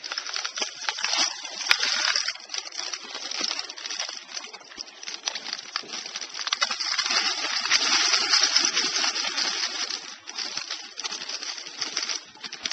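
Water sloshing and draining from a plastic bucket of wet fossil gravel as it is swirled and rinsed, with small stones, shell bits and garfish scales rattling against each other and the bucket.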